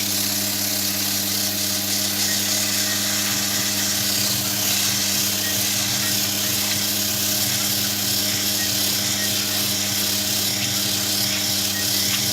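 Coarse 100-grit sandpaper hissing steadily against a turning softwood ball, over the even hum of the electric motor that spins it.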